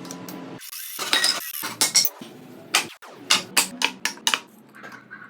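A run of sharp clicks and knocks of hard objects being handled, several a second, over a low steady hum that cuts out briefly twice.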